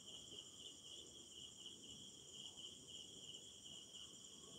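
Near silence: room tone with a faint, steady high-pitched chirring that pulses evenly.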